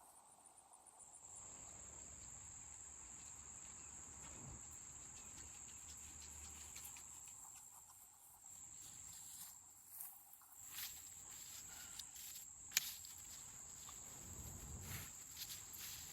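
Insects trilling, one high steady note that sets in about a second in and holds on. Scattered light ticks and taps come in the second half, with one sharp click.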